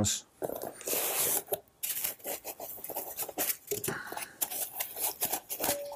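Irregular rustling and scraping of a cardboard box, its foam inserts and a paper instruction sheet being handled, with a few light knocks as a small electronic unit is lifted out of the packaging.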